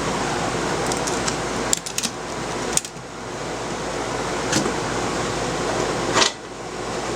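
Steady hum of an air-conditioner unit, with several sharp metal clicks and knocks as the motorcycle top case and its center lock are opened and worked: a quick cluster a little under two seconds in, one near three seconds, and a louder knock a little after six seconds.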